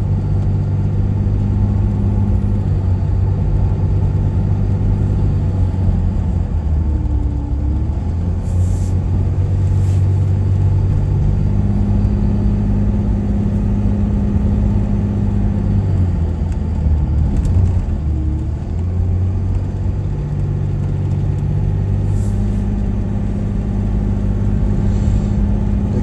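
Vehicle engine and road noise heard from inside the cabin while driving, a steady low drone whose pitch shifts a few times as the engine load changes.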